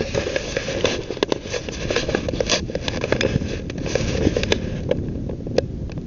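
Wind buffeting an outdoor microphone, a low rumble, with many scattered crackling clicks throughout.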